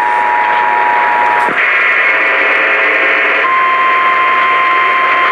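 Emergency Alert System two-tone attention signal blaring over radio static, cutting off about a second and a half in; after a brief stretch of mixed tones, a single steady warning-alarm tone, like the NOAA Weather Radio 1050 Hz alert, starts about three and a half seconds in.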